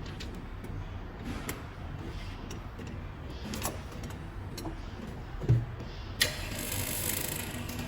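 Bench handling while OCA glue film is laid onto phone glass: scattered light clicks and a thump about five and a half seconds in, over a steady low machine hum. A sharp hit then opens a hiss that runs to the end.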